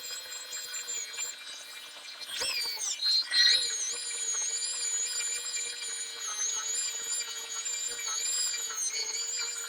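Power sander running with a steady whine. About two and a half seconds in, the pitch dips and glides back up as it is loaded or eased off, then it settles back to an even run.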